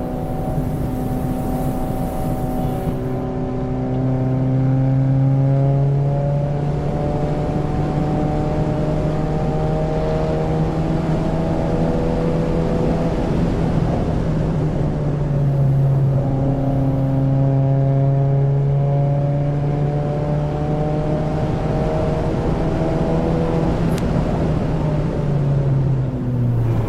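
A 2024 Subaru WRX's turbocharged 2.4-litre flat-four pulls under load, its pitch climbing steadily for about twelve seconds. The pitch then drops about 13 to 15 seconds in and climbs again, and falls sharply near the end as the revs come down.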